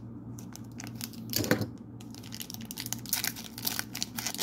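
Foil wrapper of a trading card pack crinkling and tearing as fingers work it open, with a louder rustle about a second and a half in and dense crackling from about two seconds in.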